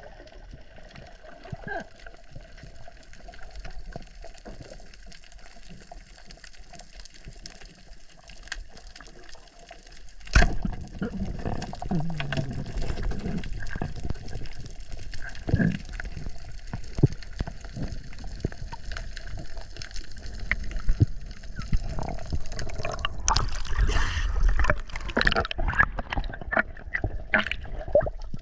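Water gurgling and sloshing around the camera during spearfishing. It is fairly quiet at first, then turns suddenly louder about ten seconds in, with many short knocks and splashes.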